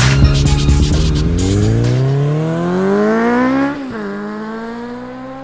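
An engine revving up, its pitch climbing steadily, dropping sharply near four seconds in as at a gear change, then holding and fading away. Music with a beat plays under it for the first two seconds or so.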